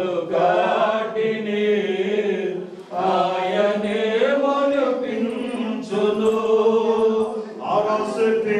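A group of voices singing in unison in long held phrases, with a brief break about three seconds in.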